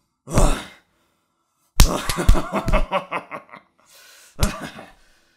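Fight sound effects of punches and smacks: one blow about half a second in, a rapid run of hits with ringing from about two seconds in, and another blow near the end.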